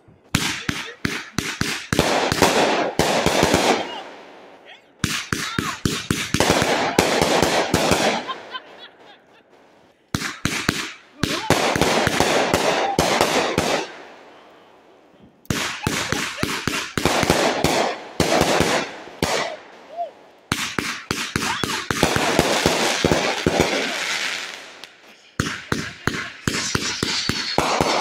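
Fireworks going off in rapid runs of dense crackling bangs. Each run lasts a few seconds, with short lulls in between, as volley after volley bursts overhead.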